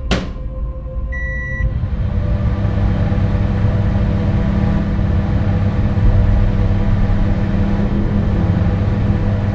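A sharp knock, then a short electronic beep about a second in, followed by a steady low hum that builds over a couple of seconds and holds, like an appliance running.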